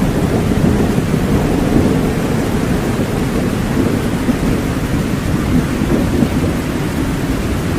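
Steady heavy rain with a continuous low rumble of thunder underneath, without any sharp crack.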